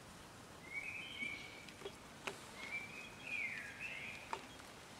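A small bird calling in two short spells of chirping, gliding notes, the second a little louder, with a few faint clicks among them.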